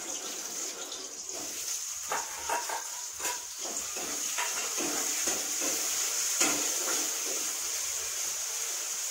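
Onions sizzling in hot oil in a kadai as a steady high hiss, with scattered scrapes and clinks of a spatula stirring them against the pan.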